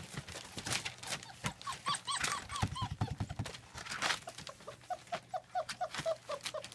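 German Shepherd puppies whimpering: a quick run of short whines about two seconds in, then steady short whimpers two to three a second from about five seconds on. Many sharp clicks and scuffles throughout.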